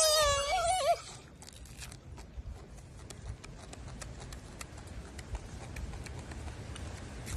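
A wavering, bleat-like animal call that stops about a second in, followed by faint, irregular clicks.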